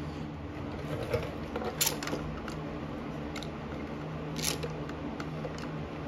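A few separate light clicks and taps as a bar clamp is fitted and snugged around an aluminium carburetor body, setting up to press in a new brass fuel inlet. A steady low hum runs underneath.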